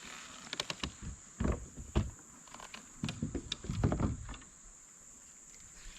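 Steady high-pitched chirring of insects, with a run of sharp clicks and dull knocks in the first four and a half seconds.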